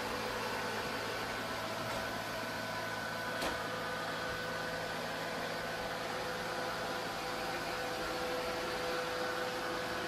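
Neato Botvac D7 robot vacuum running: a steady whir from its suction fan and brush, with a faint steady whine in it and a single short click about three and a half seconds in.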